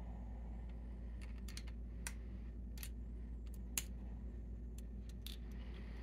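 Small, sharp, irregular metallic clicks and ticks as a screwdriver works a screw in the side of a steel padlock body, the loudest click about four seconds in, over a steady low hum.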